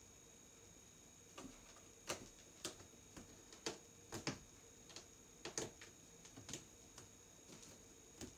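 Bengal cat climbing a floor-to-ceiling cat tree: a dozen or so irregular sharp taps and clicks of its claws and paws on the posts and platforms, starting about a second and a half in.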